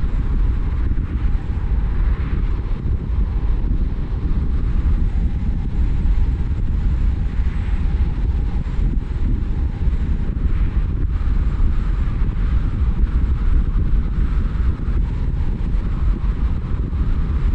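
A car driving: steady, low rumble of road and wind noise on the moving vehicle.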